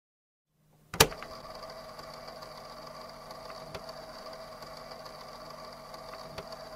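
A steady machine-like hum with several fixed tones, starting with a sharp click about a second in.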